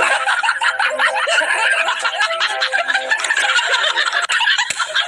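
Two men laughing hysterically, loud and shrill, with a thin, tinny sound that has no low end; it cuts off abruptly at the end.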